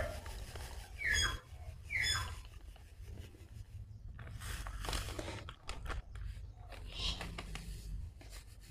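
Granulated sugar poured from a plastic bag into a pot of water: a faint hiss of grains into the water with crinkling of the bag. A bird calls twice about a second apart near the start, each call a short falling note.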